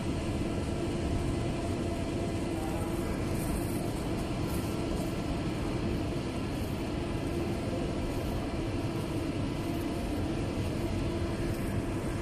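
Steady machinery noise with a constant low hum, even and unchanging, with no sudden events.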